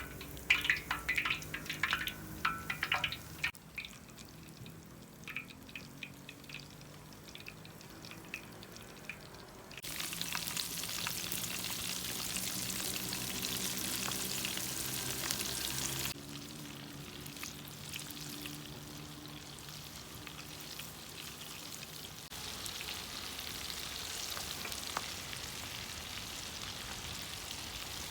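Chicken-and-potato drumsticks frying in hot oil, sizzling in stretches that start and stop abruptly, loudest from about ten seconds in and again near the end. A few light clicks and knocks near the start.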